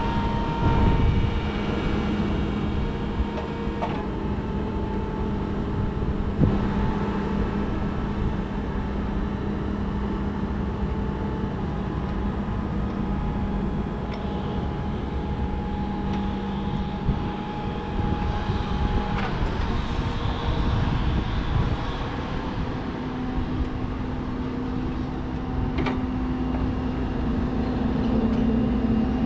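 Electric hydraulic pump motor of a Raymond 24-volt stand-up reach truck running as the three-stage mast raises the forks, a steady hum that steps up in pitch about three-quarters of the way through.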